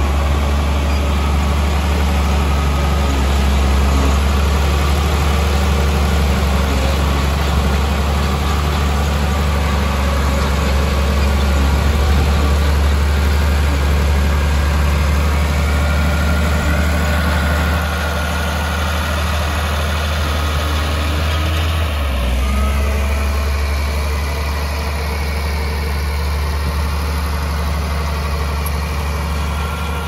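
Heavy diesel engine of earthmoving machinery running steadily with a deep drone, its note shifting briefly about two-thirds of the way through.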